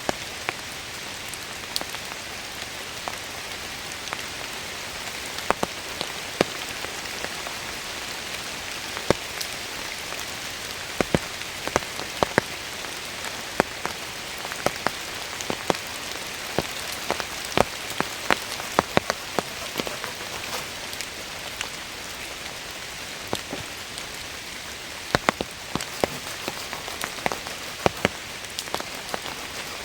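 Steady rain hiss, with frequent irregular sharp pattering of large drops hitting close by, in clusters here and there.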